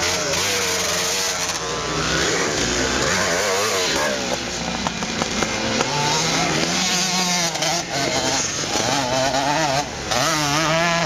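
Vintage motocross motorcycle engine revving as the bike rides the dirt track, its pitch rising and falling again and again as the rider works the throttle.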